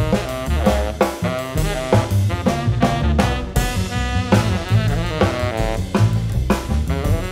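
Small jazz group playing live: a saxophone plays a melodic line over upright double bass and drum kit.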